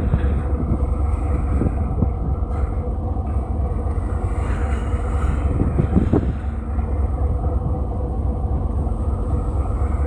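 Steady engine rumble of a moving vehicle, with wind noise on the microphone and a few brief louder swells.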